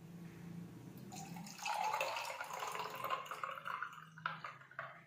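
Thick blended peach juice poured from a glass blender jar into a stemmed glass over ice cubes; the pour grows loud about a second and a half in and eases off near the end, where there are two sharp clicks.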